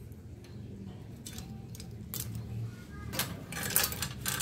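Bicycle chain links clinking and jangling as the chain is handled, a few light clicks at first, then a burst of louder metallic rattles in the second half.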